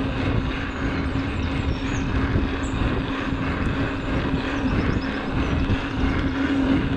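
Mountain bike rolling at steady speed on a tarmac lane: a constant tyre hum under a rush of wind on the microphone, with a few faint bird chirps.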